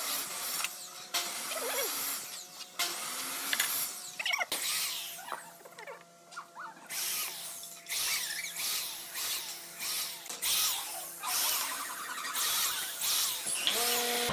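Corded electric drill boring holes into a hardwood board, run in a series of short bursts with pauses between them.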